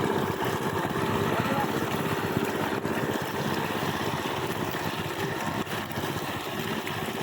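A small engine running steadily, with a rapid low chugging that does not change.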